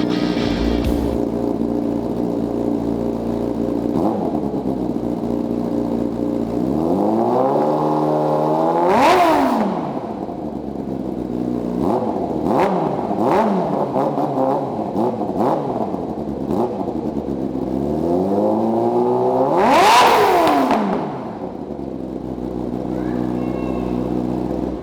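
2006 Yamaha R6S inline-four sport-bike engine idling and revved twice, its pitch rising to a peak about nine seconds in and again about twenty seconds in before dropping back to idle, with shorter throttle blips in between. It runs on a freshly installed Power Commander V fuel module and sounds a little richer.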